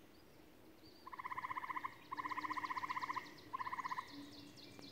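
A frog calling in three rapid pulsed trills, each lasting about a second or less, the last one shorter, with faint bird chirps above them.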